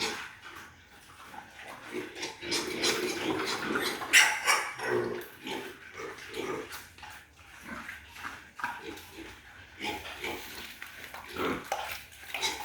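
Pigs making many short, irregular calls, the loudest about four seconds in.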